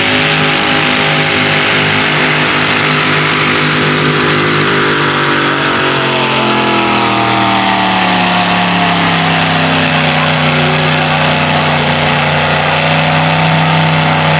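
Modified pulling tractor's engine running flat out as it drags a weight-transfer sled, its pitch sinking steadily from about five seconds in and then holding low as the sled's load builds and the engine is pulled down.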